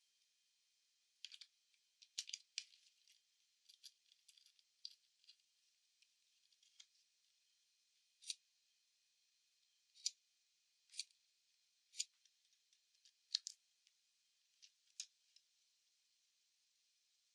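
Faint, scattered sharp clicks and ticks, in small clusters for the first few seconds, then single louder clicks about once a second.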